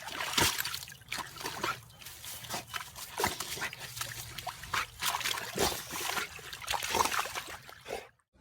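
A dog splashing in water: irregular sloshing and splashing sounds.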